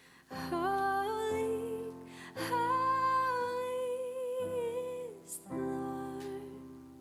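Female voice singing slow, long-held phrases, three in all, over sustained instrumental chords, in a live worship song.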